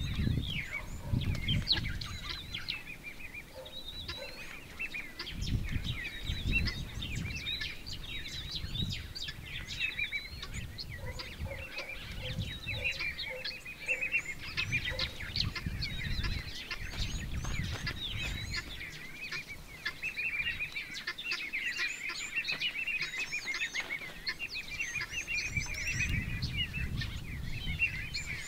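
Many wild birds chirping and calling together, with a short run of lower repeated notes about halfway through and irregular low rumbles of wind on the microphone.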